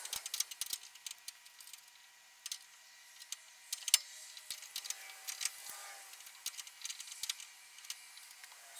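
Hand wrench working a hydraulic hose fitting on a loader lift cylinder: light, irregular metallic clicks and clinks, some in quick little runs.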